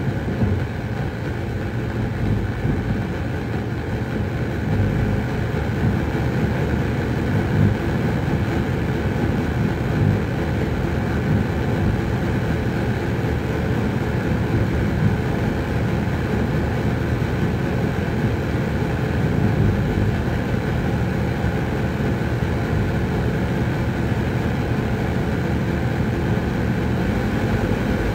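Home-built light-responsive oscillator synthesiser (OSC^n) putting out a continuous, dense electronic noise, heaviest in the low and middle range, with a fast flicker running through it.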